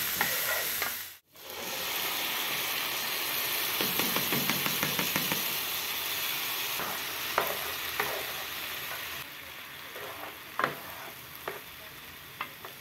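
Diced potatoes and onion sizzling in oil in a frying pan, a steady hiss with a few short sharp clicks. The sizzle briefly cuts out about a second in and is quieter in the last few seconds.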